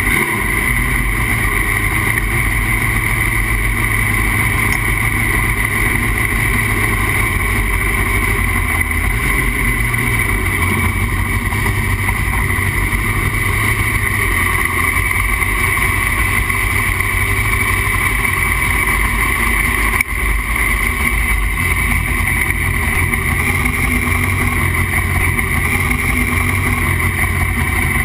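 A jet sprint boat's V8 engine running loud and steady, with little change in pitch.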